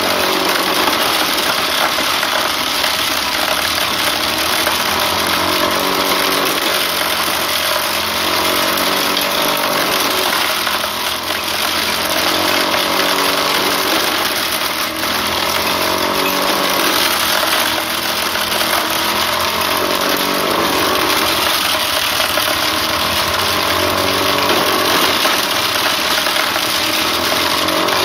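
A small engine running steadily, driving a homemade wooden corn sheller, with a dense, noisy rush over the engine note. The engine pitch wavers slightly as the load changes.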